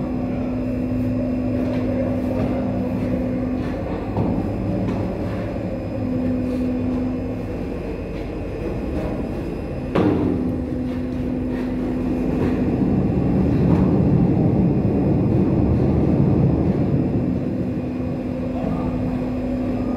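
Steady machinery rumble on a ship's mooring deck, with a steady hum that cuts in and out several times. A single sharp metallic bang about halfway through.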